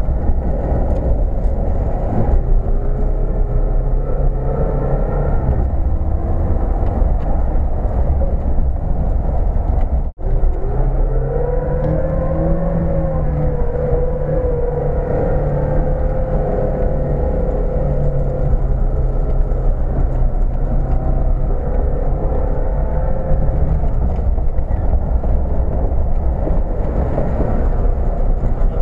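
An off-road 4x4's engine pulls hard as the vehicle wades through deep water, with water rushing and splashing against the body. The engine note rises and falls with the throttle, and there is a short break about ten seconds in.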